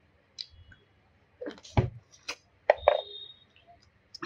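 A few sharp clinks and knocks of dishes and utensils, two of them ringing briefly.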